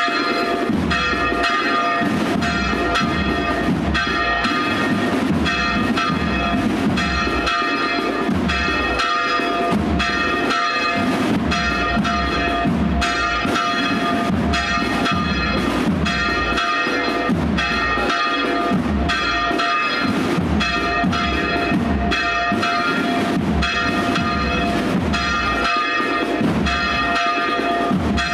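Church bells ringing in steady, rapid strokes, with the bells' tones hanging on between strikes.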